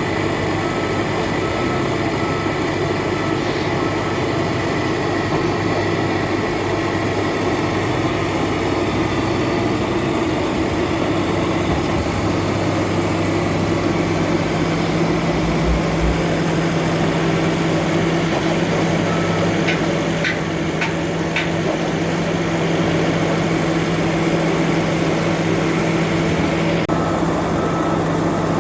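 QS3000T quarry chain saw mounted on a CAT 444 backhoe loader, cutting marble with the machine's diesel engine running steadily, a few short ticks about twenty seconds in.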